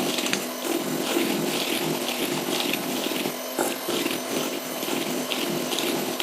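Electric hand mixer running, beating butter, sugar, eggs and vanilla together in a bowl, with a regular pulsing about twice a second as the beaters go round.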